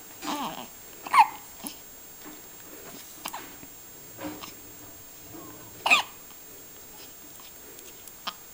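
Newborn baby hiccuping: short, sudden hiccups at uneven gaps of about half a second to a couple of seconds, the loudest about a second in and about six seconds in. Some carry a brief squeak of voice.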